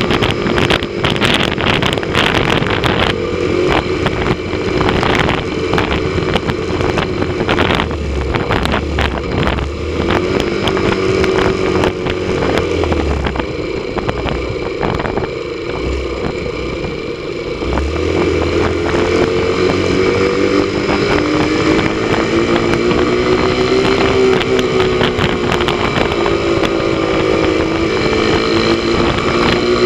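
Motorcycle engine running under way, with wind buffeting the microphone in the first few seconds. The engine note drops off near the middle as the bike slows, then rises again as it picks up speed.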